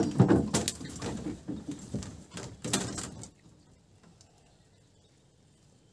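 Hoop-net fish traps and a wooden pole knocking and rattling against the boat as the nets are handled, a run of irregular clattering knocks that stops about three seconds in.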